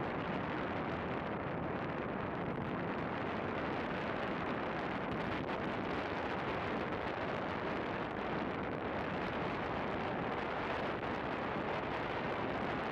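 Steady wind noise buffeting the microphone of a bicycle-mounted phone while riding, an even rushing rumble that never lets up.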